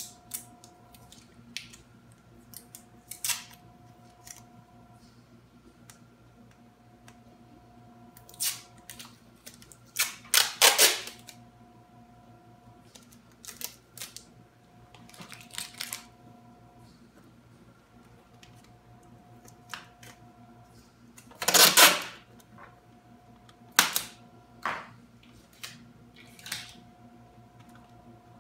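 Hands working with tape at a countertop edge: a string of short rustles, clicks and quick rips of tape, the two loudest about ten seconds in and about twenty-two seconds in, over a faint steady hum.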